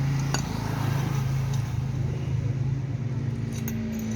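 A steady low hum like a running engine, with a few light clicks and jingles of small parts being handled.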